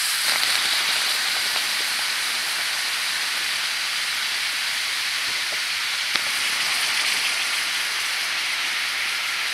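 Hot rock hissing in water in a birch bark container, stone-boiling it. The hiss is strongest for about a second as the stone goes in, then runs steadily, with a single sharp click about six seconds in.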